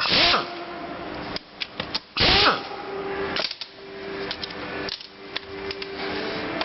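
Metal tools and gearbox parts clanking and scraping during the teardown of a manual gearbox: two loud scrapes with a short metallic ring, one at the start and one about two seconds in, then lighter clicks.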